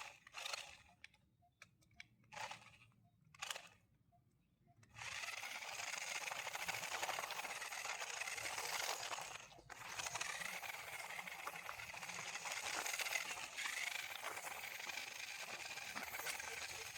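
A few short rattles, then from about five seconds in a small motor running steadily with a faint high whine and a rattly hiss, dropping out briefly near the middle.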